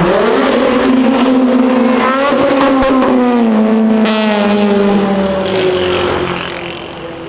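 Car engine accelerating as it drives past on the street, its pitch sliding down as it goes by, with one sharp crack about four seconds in. The sound fades near the end.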